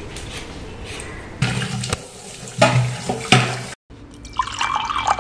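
Water running from a kitchen tap into a sink, with a few knocks. It cuts off abruptly a little before four seconds in.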